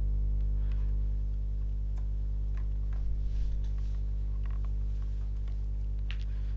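Steady low electrical hum with a stack of overtones, with a few faint clicks and a soft rustle scattered through it.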